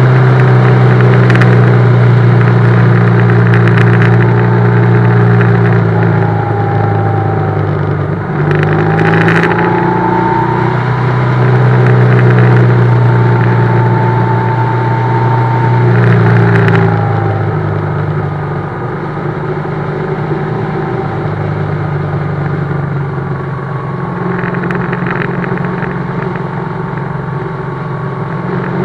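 BMW GS motorcycle engine running under way, steady and loud with its pitch drifting slightly up and down; about seventeen seconds in it eases off and runs quieter.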